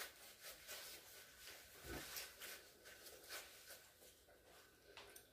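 Near silence with faint, scattered small clicks and soft rustles of people eating at a table: cutlery on plates and a paper napkin being handled.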